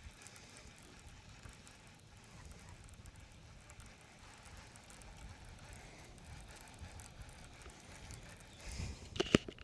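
Low, steady wind rumble on the microphone during casting and retrieving from a boat, with a few sharp knocks near the end.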